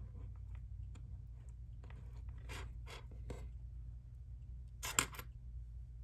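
Faint rustling and scraping of thin cord being handled and pulled as macrame square knots are tied and tightened, with a short burst of three sharp clicks about five seconds in.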